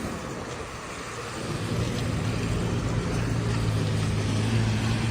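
Motor vehicle engine running with a steady low hum, coming in and growing louder about one and a half seconds in, over a steady hiss of street noise.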